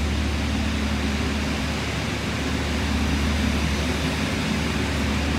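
Steady machinery drone in a wastewater treatment plant's headworks building, where incoming sewage is screened and the screenings compacted: a low hum over an even hiss that does not change.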